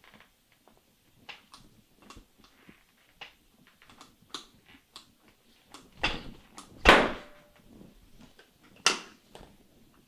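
Handling noises from an arm being worked on a treatment table: scattered light clicks and sleeve rustles, with three louder thumps about six, seven and nine seconds in, the one near seven seconds the loudest.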